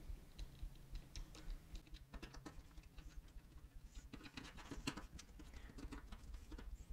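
Faint, irregular small clicks and taps of plastic and metal antenna parts being handled on a hard tabletop.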